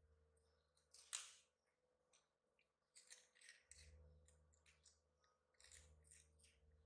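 Near silence with faint scattered clicks and rustles over a low steady hum, the sharpest click about a second in.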